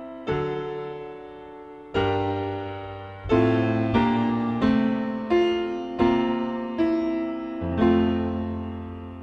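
Slow piano music: a chord about every half to one and a half seconds, each struck and left to ring and fade, with a held chord near the end.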